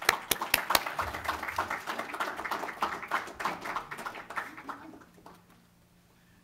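Audience applause: many people clapping, dying away about five seconds in.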